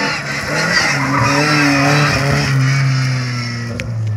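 Historic BMW 02-series rally car's four-cylinder engine running at high revs as the car slides through a gravel corner, with tyre and gravel noise. The engine note holds fairly steady and rises again near the end.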